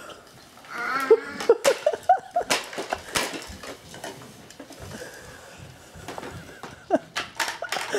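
Hard toys clattering and knocking in a scattered series, with a young child's short vocal sounds about a second in.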